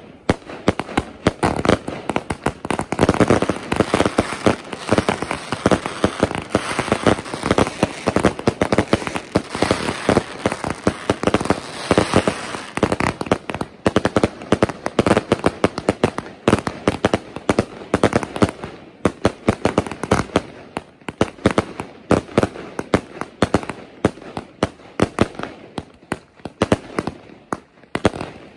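Aerial fireworks going off in a rapid, continuous barrage of bangs. They are densest in the first half, then come as more separate shots.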